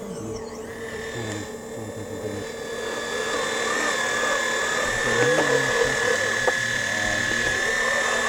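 Electric hydraulic pump of a radio-controlled model Caterpillar excavator whining steadily while the boom and bucket dig, with wavering lower tones as the controls change the load; it gets louder from about three seconds in.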